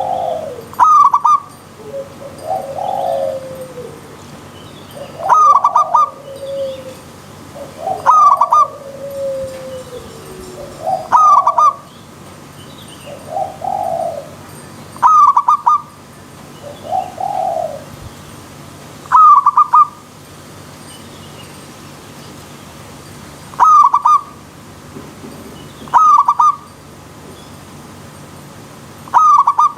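Zebra doves (perkutut) cooing over and over. Loud, sharp, high call phrases come every three to four seconds. In the first half, softer, lower, warbling coos come in between. A steady hiss runs underneath.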